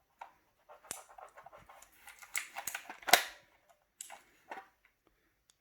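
A keyboard's magnetic plastic palm rest being handled and snapped against the keyboard's edge: a string of irregular plastic clicks and knocks, the sharpest about three seconds in.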